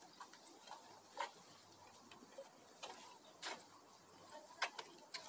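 Faint, irregular clicks and taps of a long-tailed macaque's feet on a metal grating walkway, about eight light ticks spread unevenly over a few seconds.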